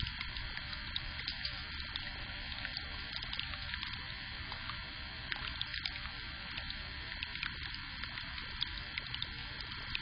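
Steady hiss and low rumble from a Blink outdoor security camera's microphone, with scattered faint ticks throughout.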